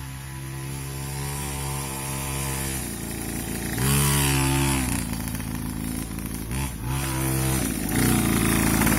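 Small two-stroke brush-cutter engine fitted to a child's minibike, running and revving up briefly about four seconds in and again about seven seconds in, louder near the end.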